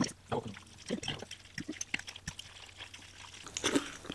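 Close-up eating sounds of jjajangmyeon (black-bean sauce noodles): wet slurping and chewing, broken by a few light clicks of utensils on a bowl.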